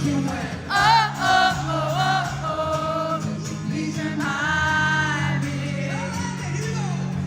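Live acoustic pop performance: a male voice sings long, wavering notes over steady acoustic guitar chords, with many voices in the crowd singing along.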